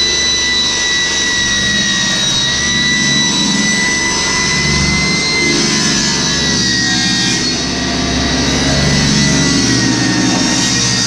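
An electric motor running steadily with a high whine that wavers slightly in pitch, over a low rumble.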